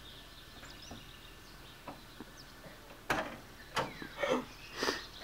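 Quiet outdoor background with faint bird chirps, then about three seconds in a series of four loud, sharp sounds roughly half a second apart.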